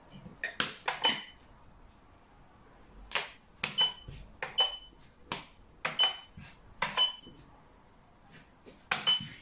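Xiangqi (Chinese chess) pieces clacking on the board and against one another as moves and a capture are made: about a dozen sharp clicks in quick clusters, some with a short ring.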